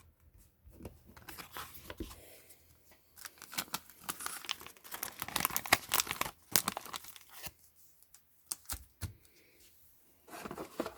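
Foil Pokémon booster pack wrapper crinkling and tearing in irregular crackling bursts, densest in the first seven seconds, then a few scattered crackles.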